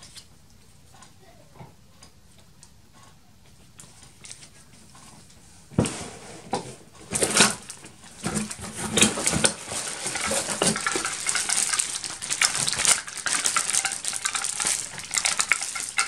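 Plastic packaging bags and cardboard rustling and crinkling as parts are pulled from a box, with sharp clicks and knocks of small hard parts in them. Quiet at first, then loud and dense from about six seconds in.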